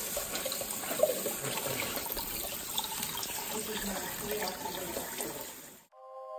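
Kitchen faucet spray running onto bean sprouts in a metal mesh strainer over a stainless steel sink, with a brief knock about a second in. The water cuts off suddenly near the end and chiming music starts.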